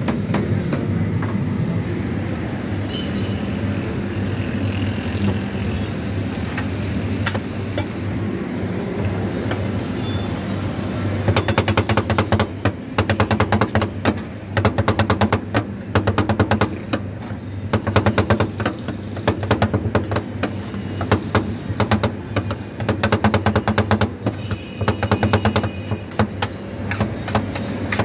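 Metal spatulas scraping and then rapidly chopping ice cream on a frozen steel pan. From a little under halfway through comes a fast clatter of sharp metal taps in repeated runs, over a steady low hum.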